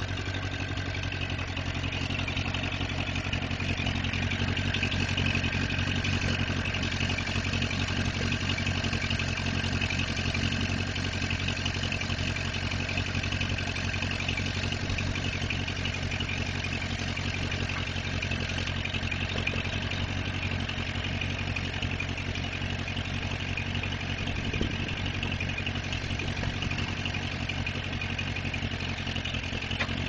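Allis-Chalmers C farm tractor's four-cylinder gasoline engine running steadily at idle after a hand-crank start.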